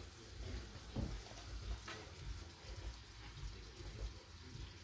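Soy sauce poured from a bottle onto a plate of noodles: a faint liquid trickle with a couple of soft knocks.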